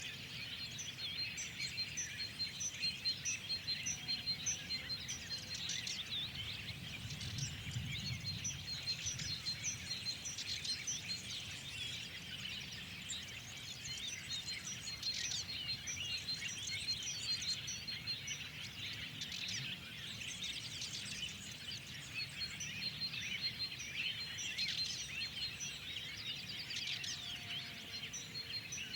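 Dense chorus of many songbirds chirping and trilling, with one bird repeating a rapid high note over and over, against a soft low outdoor rumble.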